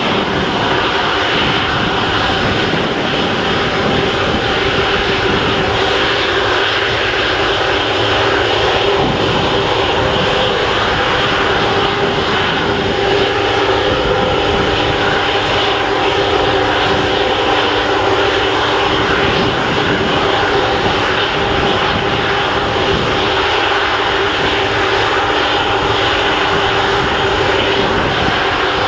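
Airbus A330-243F's two Rolls-Royce Trent 700 turbofans idling: a steady whine over a constant rushing noise.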